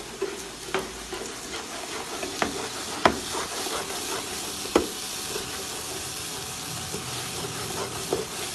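Green peas and spices frying in oil in a pan with a steady sizzle, stirred with a wooden spatula that gives several sharp knocks against the pan at irregular moments.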